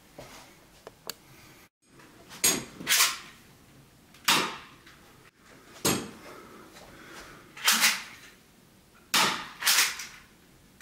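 Airsoft replica of a Walther P22 pistol firing about eight shots at irregular intervals, each a sharp pop, some shots following close behind one another.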